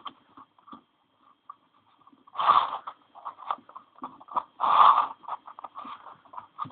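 Plastic 3x4x5 cuboid twisty puzzle being turned by hand: its layers click and clack in quick, uneven strokes, with two longer, louder turns about two and a half and five seconds in.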